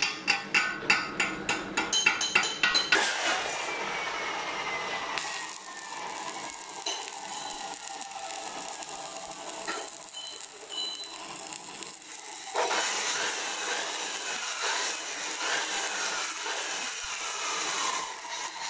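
A quick run of sharp knocks, about three a second, for the first three seconds. Then electric arc welding on a cracked dumper truck rear axle housing: the steady crackle and hiss of the arc, getting louder about two-thirds of the way through.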